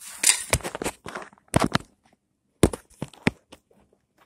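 Handling noise from the moving camera: a handful of irregular knocks and rustles in short clusters, with brief quiet gaps between them.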